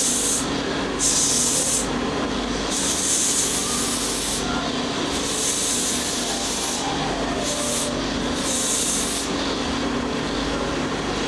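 Hand file rasping on a deer antler knife handle in about five uneven strokes of a second or so each, over a steady low hum.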